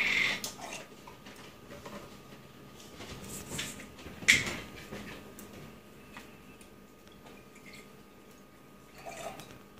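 Orange juice pouring from a pitcher into a glass, stopping just after the start. Then come quiet glassware clinks on a stone counter, the loudest a single sharp knock about four seconds in, and a faint pour near the end.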